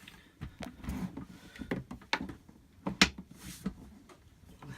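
Irregular knocks, clicks and scrapes of a Thetford Aqua Magic II RV toilet bowl being handled, seated and twisted onto its base.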